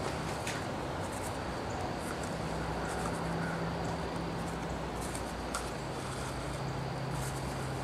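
Thread being pulled through a leather sheath's stitch holes and the leather being handled, heard as a few faint scratchy ticks over a steady low hum.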